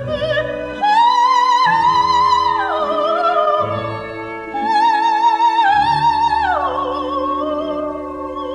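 Coloratura soprano singing an operatic cabaletta live with orchestra. She holds high notes with a marked vibrato and twice drops away in a quick downward run, about two and a half seconds and six and a half seconds in.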